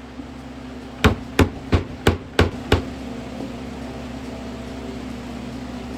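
Six quick strikes on the end of a wood chisel, about three a second, driving it into a small clamped wood block to cut a straight line. A steady low hum sits underneath.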